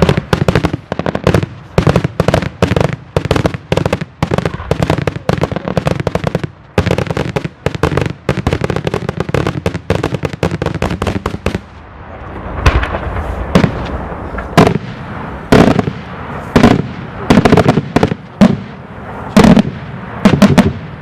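Daylight fireworks display: a rapid string of many bangs and cracks for about twelve seconds, then louder separate booms about once a second over a rumbling background.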